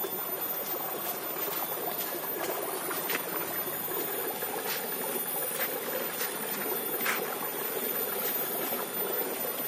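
Water running steadily through a narrow concrete irrigation channel beside a rice paddy, a continuous rushing trickle.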